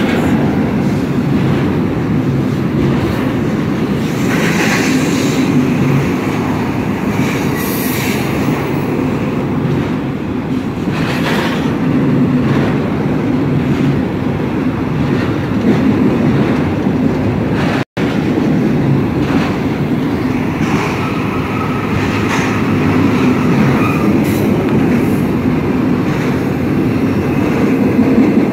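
Double-stack intermodal freight train rolling past on a curve: a steady rumble of wheels on rail with scattered clanks, and a thin wheel squeal for a few seconds near the end.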